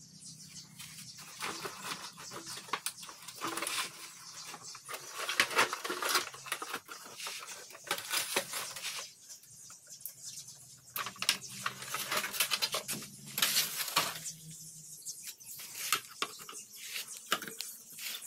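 Hand tools and metal scooter parts clinking, knocking and scraping during disassembly, in an irregular run of sharp clicks and scrapes.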